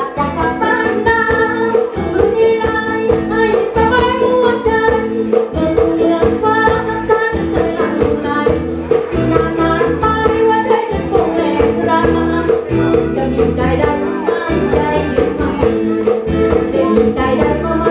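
A woman singing into a handheld microphone over amplified backing music.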